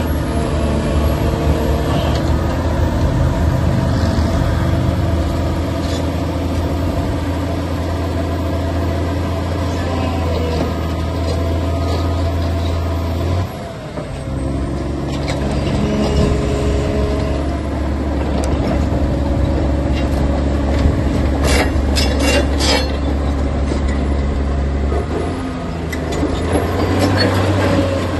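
Caterpillar D5 crawler dozer's diesel engine running steadily as the machine moves about on its steel tracks. The engine note dips briefly about halfway through and shifts again near the end, with a quick run of sharp clanks about three-quarters of the way in.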